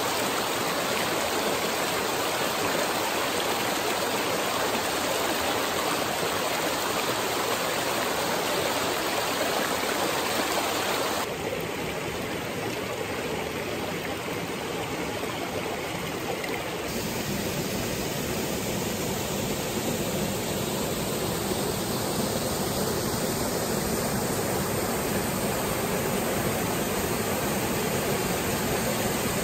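Small rocky mountain stream rushing steadily over riffles and a small cascade. The rush dips a little and turns duller for a few seconds around the middle, then comes back full.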